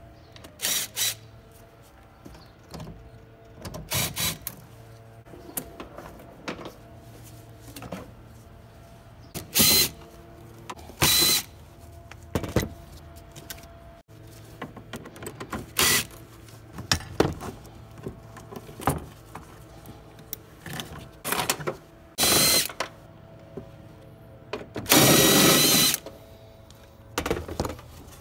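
Cordless power ratchet running in short bursts with a motor whine, about a dozen times, each under a second and the longest near the end, as it loosens the fasteners and clamps on the air intake and airbox.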